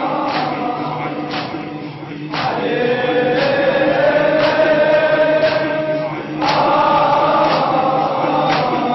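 Male Shia reciters and mourners singing a lament in long, drawn-out 'aah' phrases, with a sharp beat about once a second from the mourners' chest-beating (latm).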